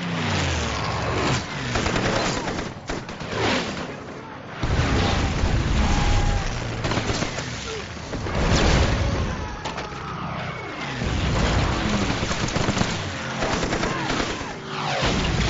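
War-film battle sound of an air attack: rapid machine-gun fire and explosions, with shouting voices. The deep rumble of the blasts grows heavier about four and a half seconds in.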